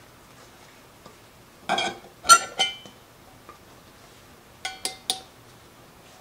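Empty metal tomato cans clinking, each hit with a short metallic ring. The hits come in two quick groups of about three, a few seconds apart.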